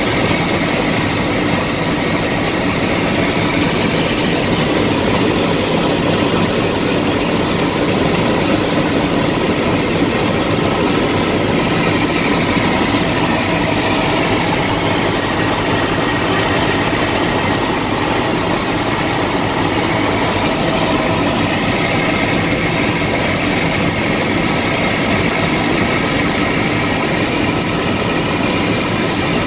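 Bell 206 helicopter's Allison 250 turbine engine and rotor heard from inside the cabin in cruise flight: a steady, unbroken drone.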